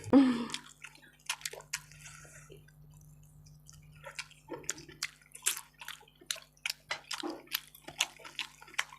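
Close-up wet chewing and mouth smacking of someone eating rice and chicken curry: irregular short wet clicks and squelches, sparser for a second or two, then coming thick and fast, over a steady low electrical hum.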